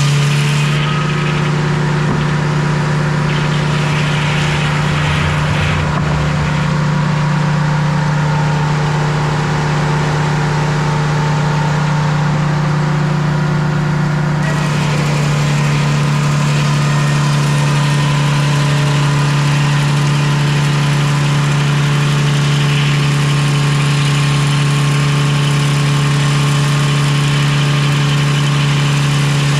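Sawmill engine running steadily at a constant pitch, with a hiss in the upper range that thins about a second in and fills back in about halfway through.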